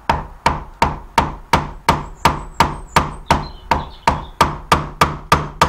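A hammer striking the handle of a narrow wood chisel held upright in a softwood board, chopping out the waste of a dovetail joint. The strikes are sharp and evenly spaced, about three a second, each with a short ring.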